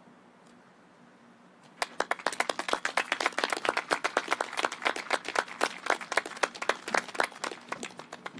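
A few people clapping their hands, starting about two seconds in and stopping near the end.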